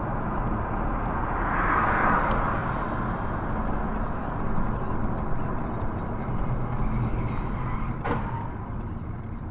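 Steady vehicle and road noise, swelling about two seconds in, with one short sharp knock about eight seconds in.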